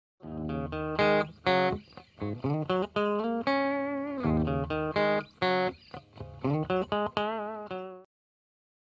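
Short guitar intro music: a run of plucked and strummed notes, some held with a wavering pitch, that cuts off abruptly about eight seconds in.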